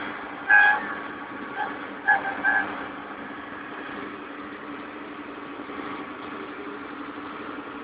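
Putzmeister truck-mounted concrete pump running steadily while its boom arm is worked, an even engine hum. Several short high beeps cut in over it during the first three seconds.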